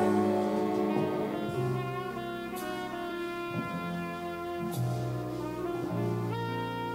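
High school jazz big band playing a slow ballad: held brass and saxophone chords over changing bass notes.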